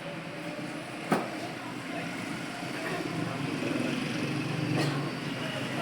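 Computer keyboard being typed on under a steady background din with faint distant voices, with one sharp key click about a second in and another near the end.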